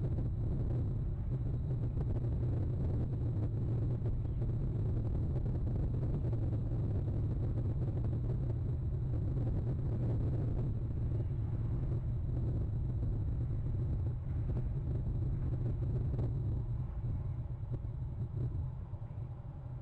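Steady low rumble with a faint hiss over it, easing off near the end.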